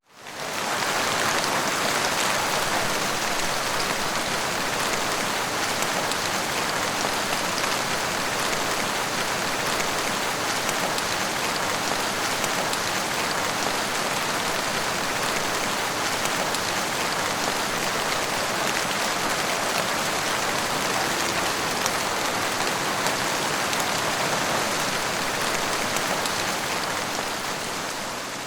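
Heavy rain falling steadily, a dense even hiss of drops on surfaces. It fades in from silence at the start and fades out near the end.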